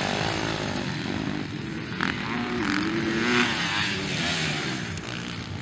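MX1-class motocross bike (a Yamaha) revving hard as it passes close by, its engine pitch rising and falling with the throttle. A single sharp crack comes about two seconds in.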